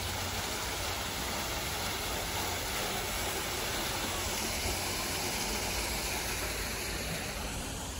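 Water from a small artificial waterfall falling over rocks into a pond: a steady, even rush.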